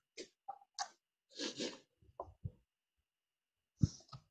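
Faint breaths and small mouth noises close to a microphone, a few short scattered sounds, then a short bump near the end.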